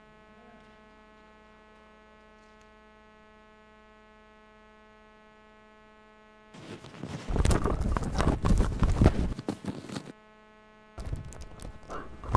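Steady electrical hum from the sound system, then about halfway through loud rustling and knocking close to a microphone, in two stretches, the second beginning near the end.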